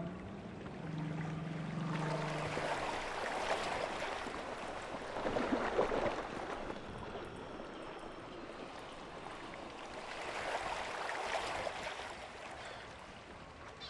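Ocean water ambience: a rushing, wash-like sound that swells and fades several times, like waves surging. A low, drawn-out whale call carries over into the first two and a half seconds.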